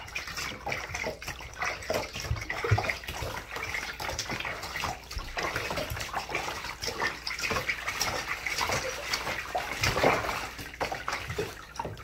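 Water splashing and sloshing in a bathtub in quick, irregular splashes as a puppy is washed in it.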